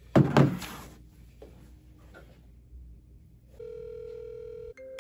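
A hard briefcase set down with a loud thump on a table. About three and a half seconds in, a phone call's ringing tone sounds as a steady beep a little over a second long, followed by a quick run of short tones at different pitches.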